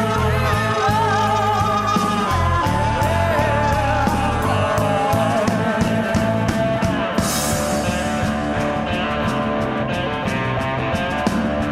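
Rock band playing live: a lead melody line that bends and wavers in pitch over bass and a steady drum beat, with a cymbal crash about seven seconds in.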